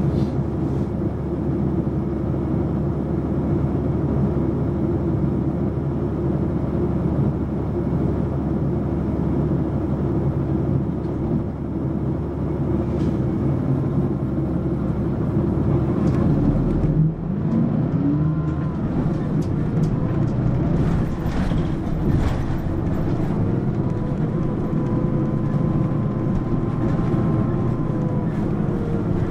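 Running sound heard aboard a Mitsubishi Fuso PA-MK25FJ route bus: the diesel engine drones steadily as the bus drives. About halfway through, the engine note dips and then climbs again.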